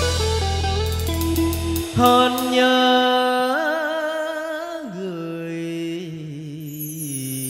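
A male singer holds long, ornamented notes with vibrato in a Vietnamese tân cổ giao duyên song (cải lương), over a live band with drums. The drums and low backing drop away about two seconds in, leaving the voice and lighter accompaniment.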